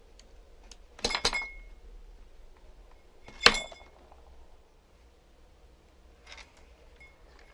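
A few sharp metallic clinks of small metal tools during soldering work: a quick cluster with a short ring about a second in, a single louder clink midway, and a faint one near the end.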